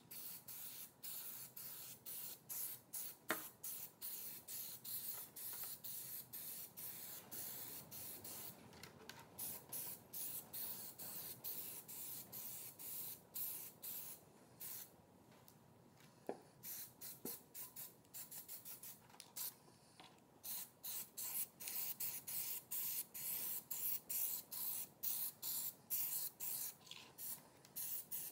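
Aerosol spray can of black Plasti Dip rubber coating spraying in many short hissing bursts, one quick pass after another, as a light first coat goes onto a clear RC body shell.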